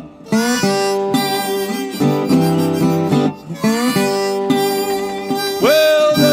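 Blues band playing an instrumental fill between sung lines: a lead instrument slides up into long held notes three times over a rhythm guitar.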